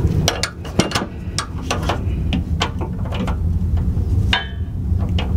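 Steel wrenches clinking and tapping against the fuel filter and fuel line fitting as a 16 mm flare nut wrench and an adjustable wrench are fitted and worked to loosen the fuel line nut. There are a dozen or so irregular sharp clicks over a steady low hum, with a brief squeak about four and a half seconds in.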